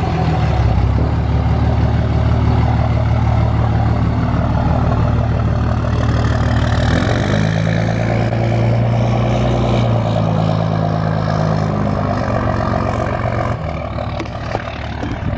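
2005 Dodge Ram 2500's 5.9-litre Cummins inline-six turbodiesel pulling away and driving off, its deep engine note stepping in pitch a few times, then growing quieter near the end as the truck gets farther away.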